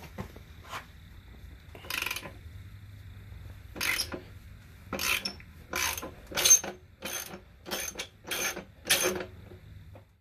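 Socket ratchet with a 3/4 inch socket working the rear axle nut off a Suzuki Boulevard S50 motorcycle. The pawl clicks in about nine short bursts as the handle is swung back, sparse at first and then coming about every two-thirds of a second through the second half.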